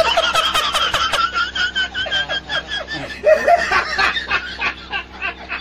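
A man laughing hard in rapid, high-pitched bursts.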